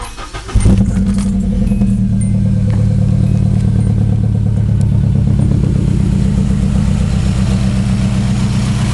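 Nissan KA24DE 2.4-litre four-cylinder engine starting about half a second in, then idling steadily. It sounds really weird; the owner suspects a misfire, perhaps a fuel problem, since the plugs, wires, distributor and rotor have checked okay.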